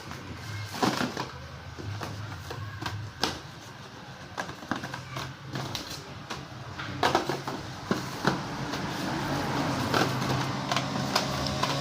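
Irregular clicks and rustles of a package and cable being handled. A passing motor vehicle's engine hum grows louder near the end.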